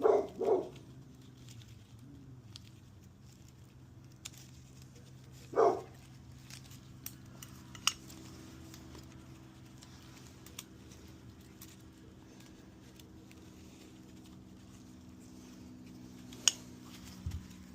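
A dog barks twice, once at the start and once about five and a half seconds in. Between the barks come a few light metallic clicks and taps of small engine parts being handled, over a steady low hum.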